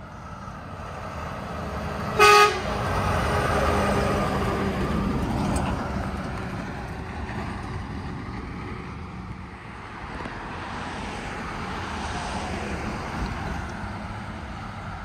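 A box truck driving past: a short horn toot about two seconds in, then its engine and tyre noise swells and fades as it goes by. Another vehicle approaches near the end.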